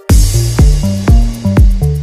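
Electronic dance music: the full beat kicks in right at the start, with a heavy kick drum about twice a second under a bass line and synth notes.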